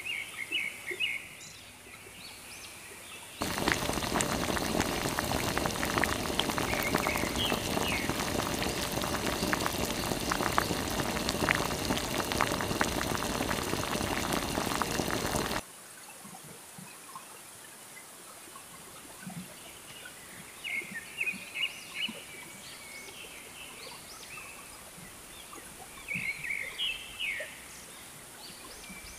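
Birds chirping in short high bursts over a quiet outdoor background. A loud, steady, crackling hiss cuts in a few seconds in and stops abruptly about twelve seconds later.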